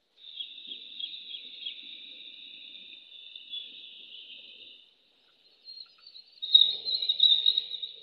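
High-pitched wild animal calls: a thin, trilling chirr that runs for about five seconds, breaks off briefly, then comes back louder near the end.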